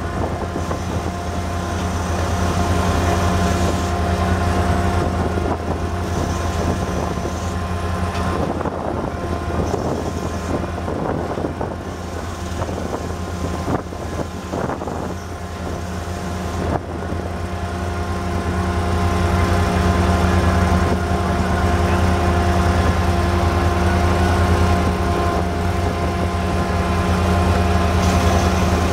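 Delmag RH34 drill rig's diesel engine running steadily, with a constant whine above the engine note. Scattered knocks come through in the middle.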